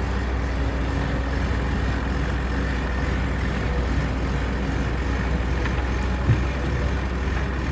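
Heavy machine engine running steadily, a low drone, with a single short knock about six seconds in.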